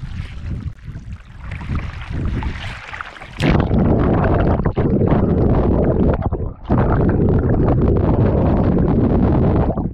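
Pond water sloshing and rushing against a camera dipped at and then under the surface. About three and a half seconds in it jumps to a loud, steady rushing noise as the camera goes under, with a brief dip near seven seconds.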